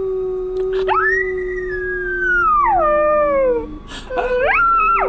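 A dog howling. One long howl about a second in slides down in pitch over a couple of seconds, and a shorter howl near the end rises and then drops. A lower, steady howling tone is held underneath.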